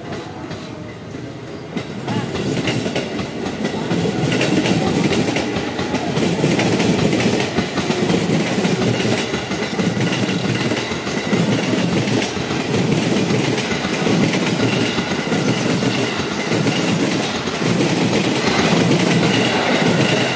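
JR 205 series electric commuter train passing close by. Its wheels clatter rhythmically over the rails. The sound builds over the first few seconds as the train arrives and stays loud while the cars go by.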